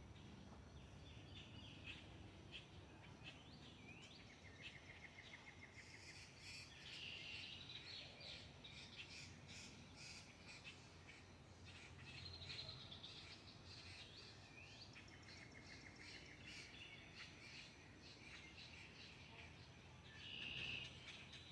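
Faint chorus of birds chirping and calling over one another, with quick rattling trills now and then and one louder call near the end, over a low steady background rumble.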